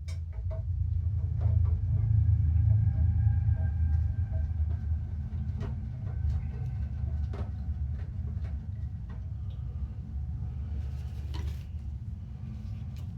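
A steady low rumble with faint higher tones over it, and light clicks and taps scattered through it.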